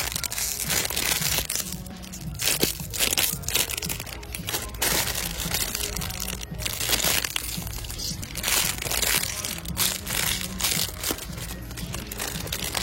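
Irregular crackling and rustling noises, like plastic or packaging being handled close to the microphone, over faint background music.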